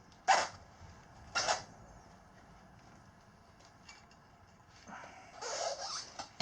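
Tire irons scraping and knocking against the rim as a tire bead is levered on: two short scrapes in the first second and a half, then a longer scrape near the end.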